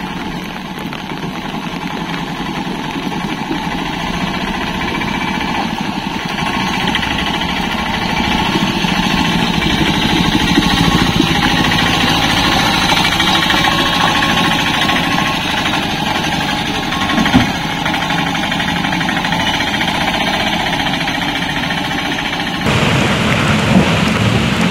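Autorickshaw engine running steadily as the three-wheeler drives slowly over a potholed road, growing louder toward the middle as it passes close. A single thump comes about seventeen seconds in, and the sound changes abruptly near the end.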